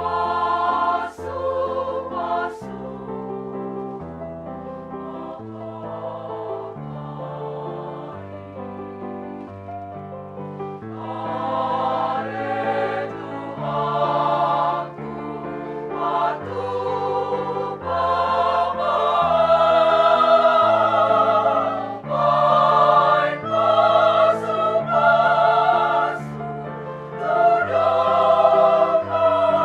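Women's church choir singing in parts, with sustained notes. It goes softer for a few seconds, then swells louder from about a third of the way in.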